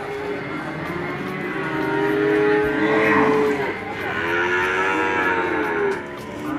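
Cattle mooing: two long, drawn-out moos, one after the other.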